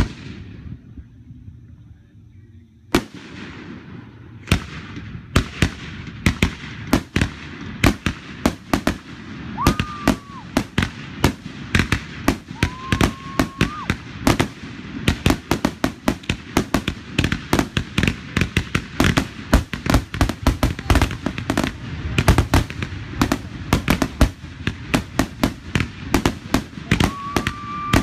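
Fireworks display with aerial shells bursting. A single bang comes about three seconds in, then another, and from there a rapid barrage of many bangs a second. A few short whistles sound over it.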